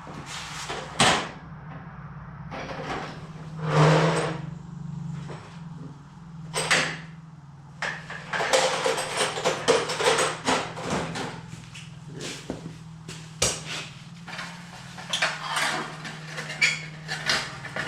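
Irregular metallic clanks, clicks and knocks of hand tools against the dryer's sheet-metal parts as needle-nose pliers are picked up and worked on the heating element's small terminal tabs, over a steady low hum.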